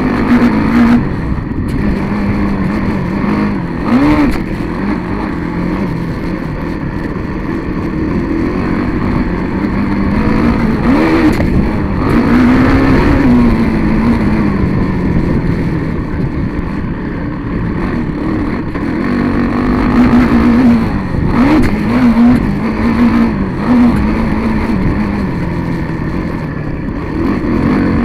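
Engine of a vehicle running on a dirt track, heard from its own mounted camera: revving up and falling off again and again over a constant rush of wind and rough ground, with a few jolts from bumps.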